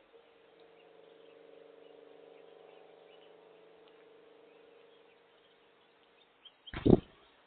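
A steady low engine hum swells and fades over about five seconds, then a sudden loud thump comes about a second before the end. Faint bird chirps are scattered throughout.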